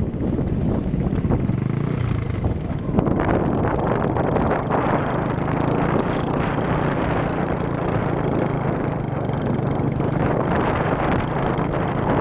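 Motorbike engine running steadily on the move, with wind noise on the microphone that grows louder about three seconds in.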